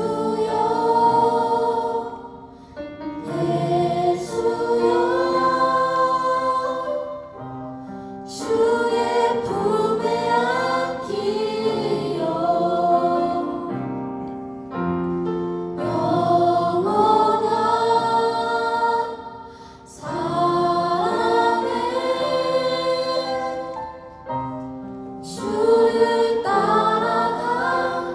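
A group singing a worship song together, phrase by phrase with short breaths between, over held accompaniment notes.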